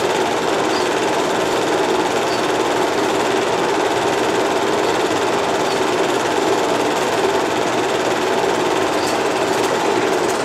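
8mm film projector running steadily, its motor and film-transport mechanism giving an even mechanical whirr.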